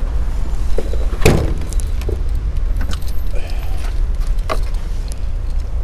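Car keys jangling and turning in the key-operated bonnet lock behind the grille badge of a Ford Tourneo Connect. A sharp clunk about a second in is the latch letting go, followed by a few lighter clicks and knocks as the bonnet is raised.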